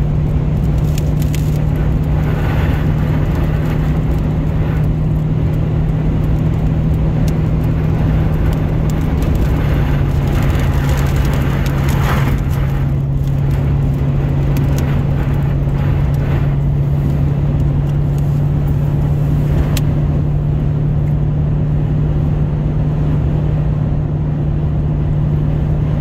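Toyota Tundra pickup driving on a highway, heard from inside the cab: a steady, loud road and engine drone with a strong low hum that drops slightly in pitch about ten seconds in.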